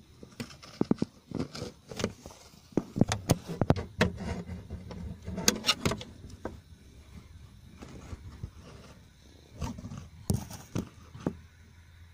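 Irregular clicks, knocks and rubbing from handling close against car bodywork and dashboard trim, loudest in the first half and again near the end, over a low steady hum.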